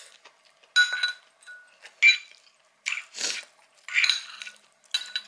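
A metal spoon clinking against a ceramic bowl, several light strikes that ring briefly, mixed with repeated sniffles through a stuffy nose, typical of a head cold coming on.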